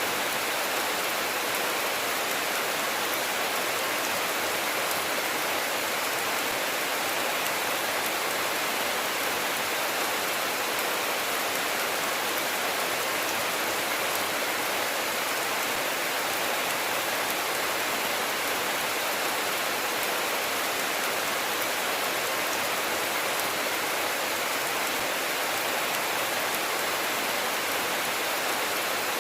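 Steady rainfall, an even, unbroken hiss of rain with no thunder.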